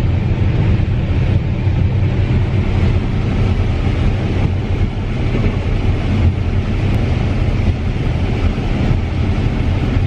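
CLAAS combine harvester running steadily while picking corn, heard inside its cab: a constant low drone of the engine and threshing machinery with an even hiss over it.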